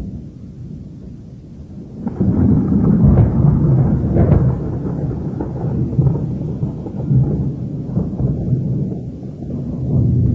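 Strong gale-force wind buffeting the phone's microphone with a deep, gusty rumble, rising sharply about two seconds in and surging and easing after that.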